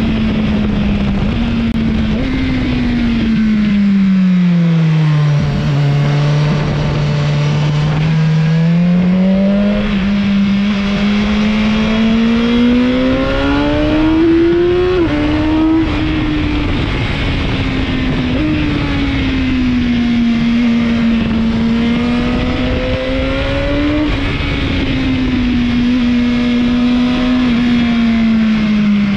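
Motorcycle engine heard from the bike while riding. Its pitch rises and falls with the throttle, with a sudden drop about halfway through at a gear change. Under it is a steady rush of wind and road noise.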